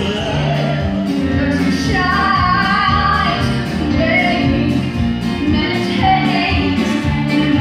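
Live stage musical number: cast singing, with a female voice prominent, over an instrumental accompaniment with a steady beat and bass line.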